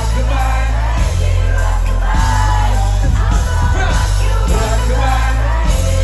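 Loud live music through a concert stage's sound system: a heavy bass beat with a vocalist singing over it.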